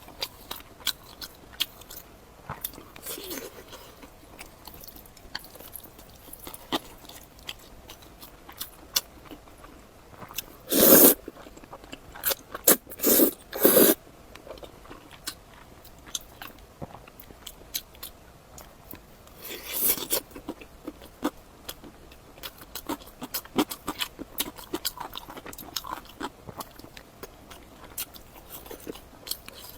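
Close-miked eating sounds: chewing and biting with many small wet mouth clicks, and a few louder noisy bursts about 11, 13, 14 and 20 seconds in.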